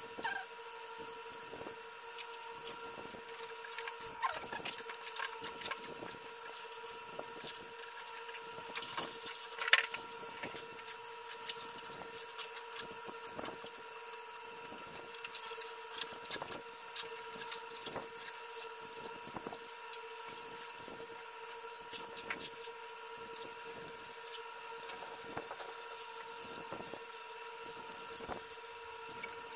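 Plastic parts of a children's rocker-slide toy being handled and fitted together: scattered clicks, knocks and rubbing, the loudest knock about ten seconds in, over a steady background hum.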